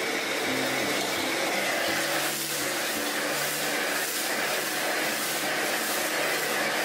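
Steady rushing hiss of a commercial wok-range burner running at full flame, with food sizzling in the wok as it is stirred and tossed.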